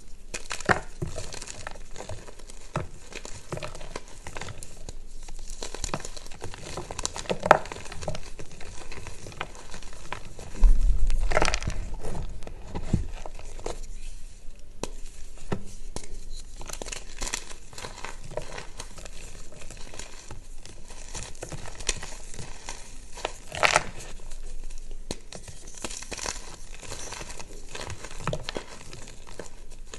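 Reformed gym chalk bars being crushed and crumbled between the fingers: continuous gritty crunching and crumbling of chalk chunks and powder, with a few sharper cracks as pieces break. A dull low thump comes a little over ten seconds in.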